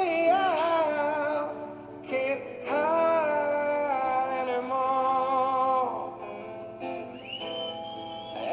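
A song with sung vocals and steady accompaniment, played over Bluetooth through a Zenith console record player's speakers.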